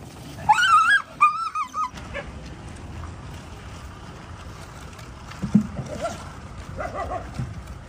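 Street dogs at feeding: one dog gives two high-pitched whining yelps in quick succession about half a second in, and a softer whine follows near the end.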